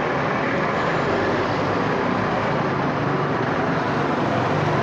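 Steady street traffic noise: motor vehicle engines running close by, with a low, even hum.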